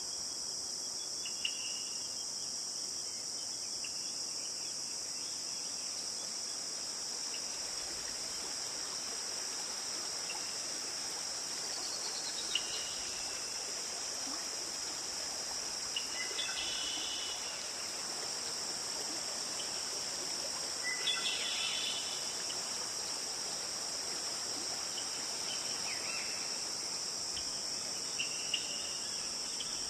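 Steady high-pitched insect chorus, cricket-like, with a few brief bird chirps scattered through.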